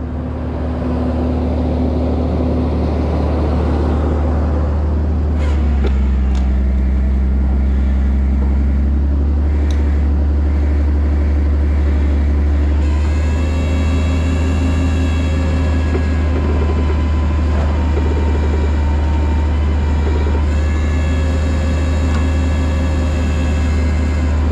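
Tow truck's engine running under load during a winch pull: a steady deep drone with a higher whine that shifts in pitch about five seconds in and again about halfway through.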